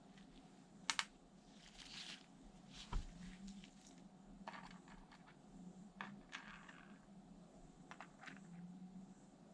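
Light clicks and short scrapes of hands and small tools working on a laptop's plastic and metal case, spread irregularly.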